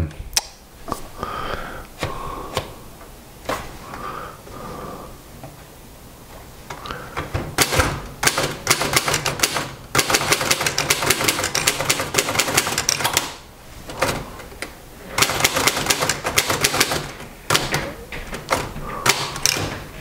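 A 1938 Royal DeLuxe manual portable typewriter being typed on: a few slow keystrokes, then fast runs of typebar strikes in bursts with short pauses, and a carriage return between lines.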